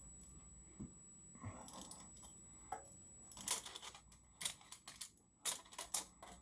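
Sharp clicks and knocks of a wrench being worked on an engine oil filter, coming in irregular clusters in the second half.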